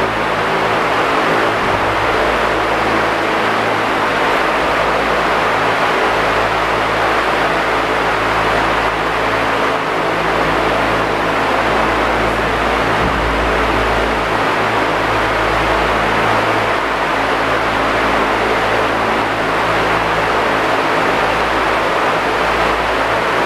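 Steady, even rushing air noise from room ventilation, with a low hum underneath.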